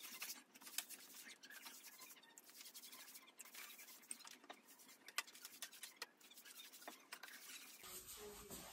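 Faint, irregular scratchy swishes of a wide 4-inch paintbrush's bristles brushing warm water onto wallpaper backing paper on a wall.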